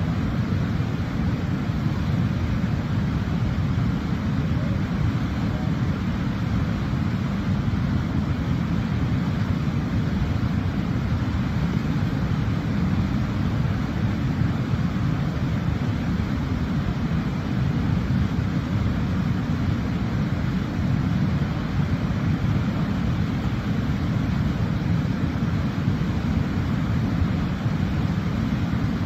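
Steady, deep rushing rumble of a waterfall, unchanging throughout.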